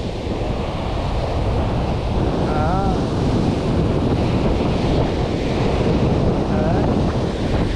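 Sea surf breaking and washing up a sandy beach, with wind buffeting the microphone.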